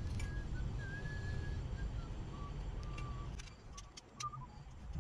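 Low steady background rumble with a few thin whistled notes, then a quick run of light clicks about three and a half seconds in as the condenser unit's metal electrical cover panel is handled.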